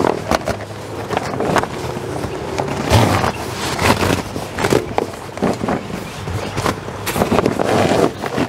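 Stiff vinyl awning fabric rustling and crinkling as it is handled and pulled, its cord sliding through the track of the awning's roller tube, in a string of short scrapes and crackles.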